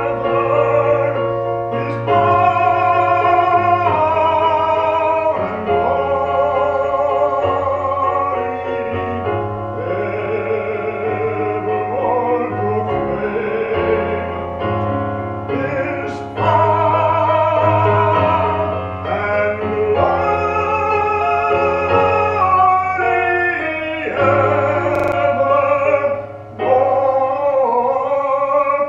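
A solo singer with a trained, operatic voice sings a slow song of long held notes with vibrato, accompanied by piano.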